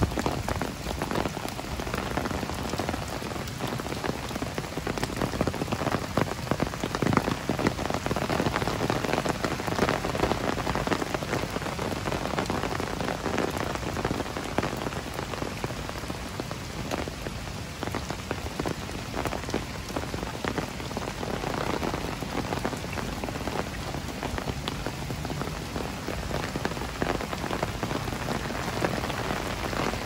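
Heavy rain falling: a steady, dense patter of drops hitting hard surfaces.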